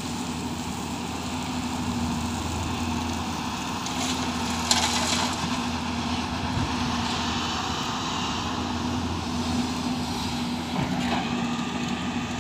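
Hyundai 215 crawler excavator's diesel engine running steadily under load while it digs and swings. About five seconds in comes a loud rush of soil dumped from the bucket into a tipper truck's steel bed.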